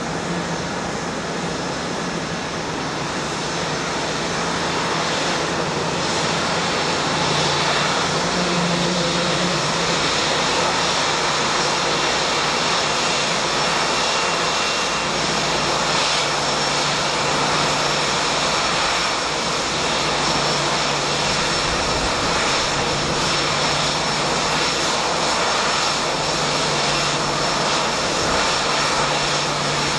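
Rolls-Royce Trent 1000 turbofans of a Boeing 787-8 at taxi power: a steady jet rush with a low hum and a faint high whine. It grows a little louder over the first several seconds as the aircraft approaches, then holds steady.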